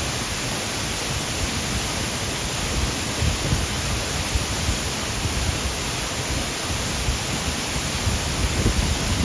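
Waterfall rushing: a steady, dense roar of falling water with a low, uneven rumble underneath.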